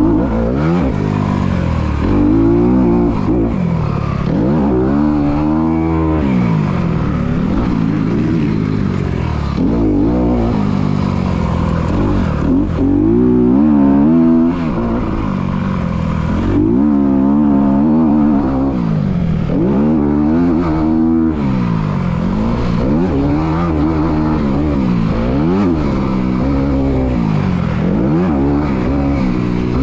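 Dirt bike engine heard up close from on board, revving up and falling back again and again every few seconds as the rider accelerates, shifts and rolls off the throttle around a motocross track.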